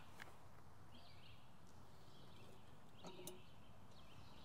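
Quiet outdoor background with a few faint, distant bird chirps scattered through it and a couple of faint ticks.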